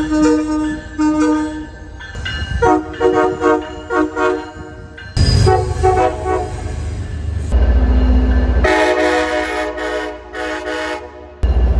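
Train horns sounding in a series of blasts, each a chord of several tones held together, some short and some long. The sound changes abruptly several times to a different horn, and a deep rumble runs under some stretches.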